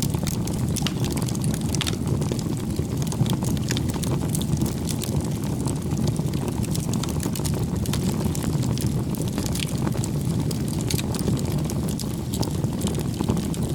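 Fire burning: a steady low rushing of flames with frequent sharp crackles and pops throughout.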